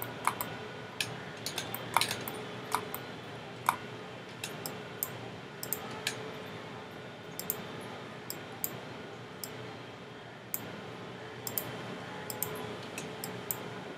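Computer mouse and keyboard clicks, irregular and sharp, at times several a second, over a faint steady background hiss.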